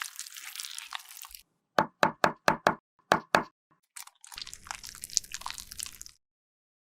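Seven sharp knocks in quick succession, hard objects tapped against a hard surface, between stretches of crackly, scratchy handling noise.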